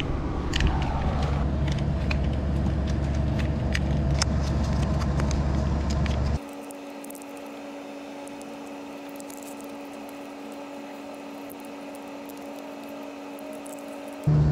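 2003 Chevy Malibu's V6 engine running steadily, a low even hum with scattered light ticks. About six seconds in the sound drops abruptly to a much quieter steady hum with a few held tones, and the loud running returns just before the end.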